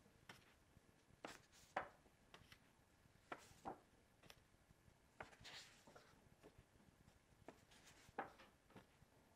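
Near silence: room tone with faint, scattered taps and rustles of stiff card flashcards being slid from the front of a hand-held stack to the back.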